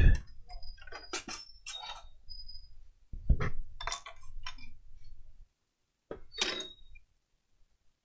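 Handling clatter on a workbench: a loud knock as it begins as the PS4 motherboard is set down on the bench mat, then a second knock about three seconds in and several small metallic clinks with brief ringing as tools and a microscope are moved about. It falls quiet about a second before the end.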